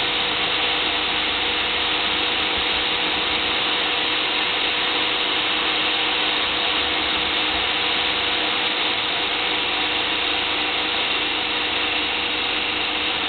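Electric hand drill driving a homemade wood lathe at full speed, a steady motor whine, while a small hand-held steel tool scrapes against the spinning workpiece.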